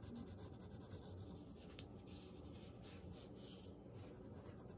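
Faint scratching of a graphite pencil shading on drawing paper in a run of short strokes.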